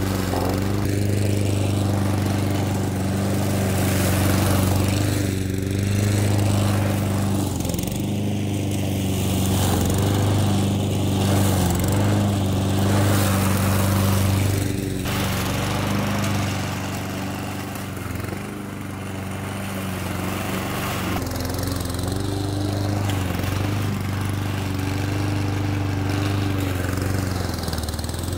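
Honda IZY walk-behind petrol lawnmower, a single-cylinder four-stroke, running steadily while cutting through long, deep grass. Its note dips briefly now and then as the thick grass loads the blade.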